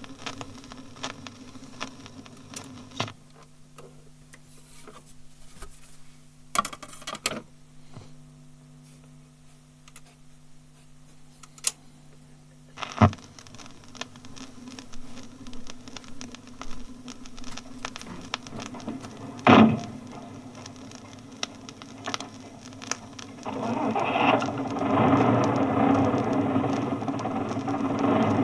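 Bus interior sounds: the engine ticking over with a steady low hum, scattered clicks and two loud knocks, then engine and road noise building from about three-quarters of the way through as the bus moves off.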